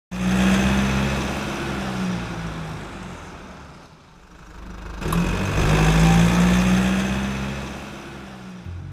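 Car engine sound effect in two long swells: loud at the start and fading away by about four seconds in, then rising again about a second later and fading out near the end.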